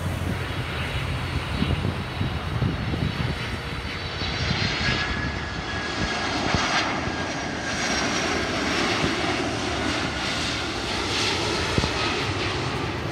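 Boeing 767-300ER airliner's twin jet engines passing low on final approach to land: a steady jet rush with faint thin whining tones, a little louder in the second half.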